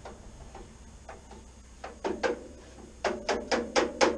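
A hammer tapping a chisel into the ground-off folded seam of a steel classic Mini door skin to split it from the door frame: a few light scattered taps, then from about three seconds in a run of quick, even strikes with a short metallic ring, about four a second.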